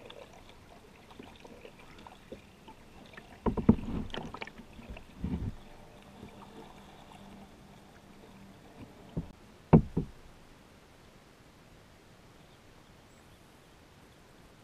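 Kayak paddling: paddle strokes and water splashing against the hull, with a cluster of louder splashes about four and five seconds in and two sharp knocks of the paddle against the kayak hull near ten seconds.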